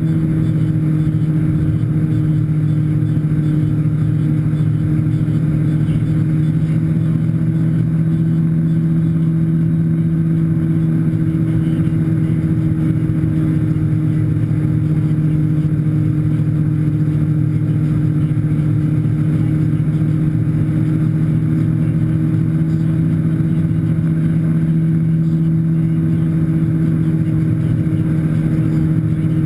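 Tow boat's engine running at a steady speed, a constant low drone that does not change, with the rush of the churning wake behind the stern.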